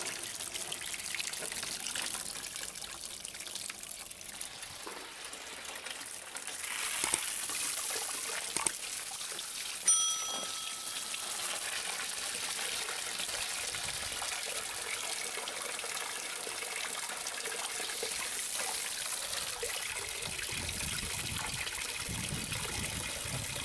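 Water from a garden-hose spray gun jetting through a car heater core and splashing into a plastic basin of water, a steady rushing splash: the core being rinsed out. A short ringing clink about ten seconds in.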